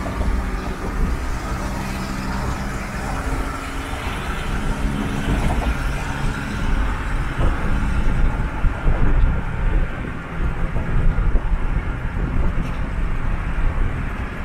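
Cabin noise inside a van driving at highway speed with the windows down: a steady low rumble of engine and tyres with a faint engine hum. From about eight seconds in, gusty wind buffeting through the open windows grows louder.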